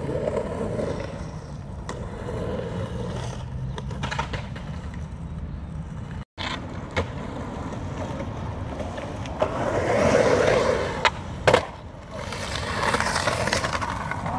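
Skateboard wheels rolling and carving across a concrete bowl: a steady rumble that swells as the board rides up the walls. Two sharp clacks about eleven seconds in, close together, as the board slams the concrete in a fall.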